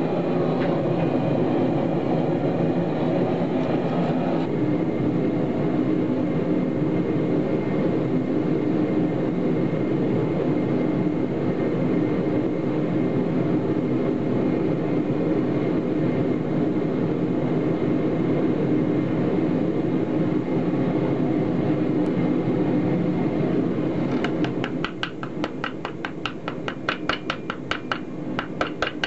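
Steady roar of a forge fire blown hot for about the first 24 s. It then gives way to rapid, regular hammer blows on the red-hot flux-coated bundle of self-tapping screws as it is forge-welded into a billet, throwing sparks.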